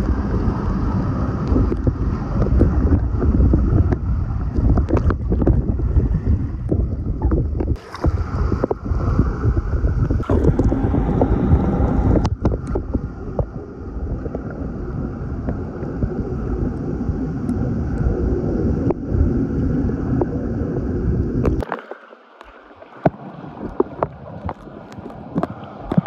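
Muffled underwater noise picked up by a phone sealed in a plastic bag while swimming: a heavy, dull rumble of moving water with scattered crackles. About twenty-two seconds in the rumble drops away suddenly, leaving fainter crackling.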